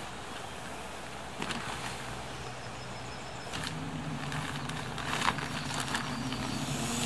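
A few rustles and knocks as an inflatable sleeping pad is handled and lifted upright, the sharpest about three quarters of the way in. Under it runs a low motor hum, like a distant engine, that grows a little stronger about halfway through.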